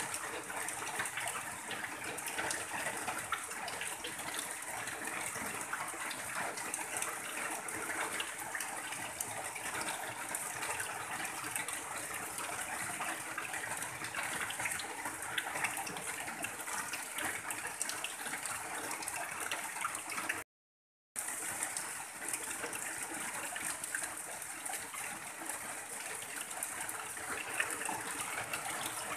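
Heavy rain on a tin roof: a dense, steady patter of drops with runoff pouring off the roof edge in a stream. The sound cuts out completely for under a second about two-thirds of the way through, then resumes as before.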